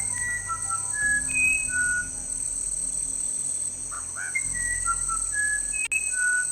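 Musician wren singing: a run of clear, pure whistled notes at shifting pitches, with the phrase starting over about halfway through.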